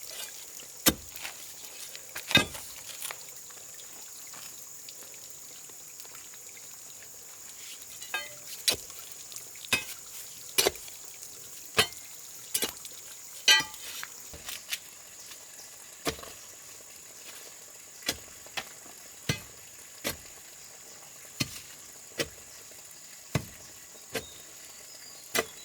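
A series of short, sharp knocks at uneven intervals, roughly one a second, with a pause of a few seconds after the first few, over a steady faint hiss.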